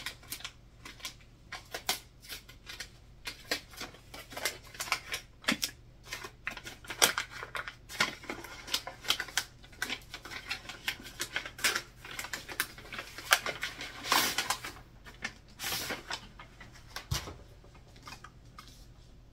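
Brown kraft paper packaging rustling and crinkling in irregular crackles as it is unwrapped from a hardcover book. The loudest crinkles come about two-thirds of the way through.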